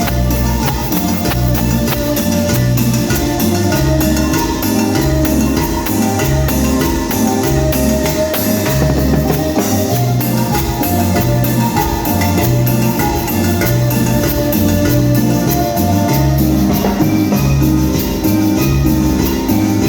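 Band music with a strong, repeating bass line over a steady drum beat, with percussion and a melody above.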